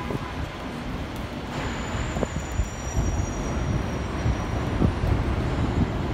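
Subway train rumbling through an elevated station, with a thin, high wheel squeal from about a second and a half in until past the middle.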